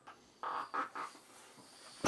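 A few short rubbery squeaks in the first second as a motorcycle tyre's bead is pushed off the rim with a bead-breaking press.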